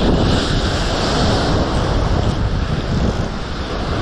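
Wind buffeting the microphone in an uneven low rumble, over a steady rush of sea surf.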